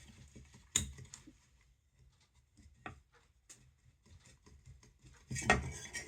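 Metal parts of a vintage blower motor being handled and pried by hand: scattered clicks and taps, a sharp click about a second in, and a burst of scraping and rattling near the end.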